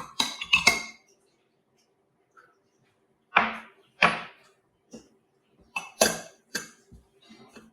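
Kitchenware clinking and knocking: a handful of separate light knocks of dishes and utensils, with a quiet stretch before them and a closer cluster in the second half.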